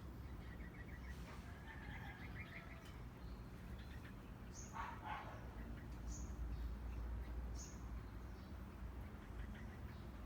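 Small birds chirping: a faint short trill near the start, then several brief high chirps about a second and a half apart, over a steady low background rumble.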